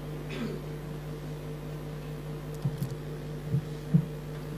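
Steady low electrical hum in a lecture hall with no speech, with a few faint short ticks late on.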